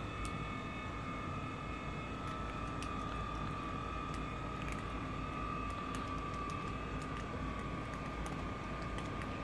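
Several cats crunching dry kibble from a plate, heard as scattered small clicks, over a steady background hum with a thin, high, even whine.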